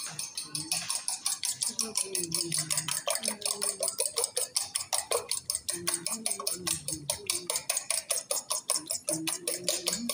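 Raw eggs being beaten with a fork in a stainless steel bowl, the fork clicking against the metal in a fast, steady rhythm of several strokes a second.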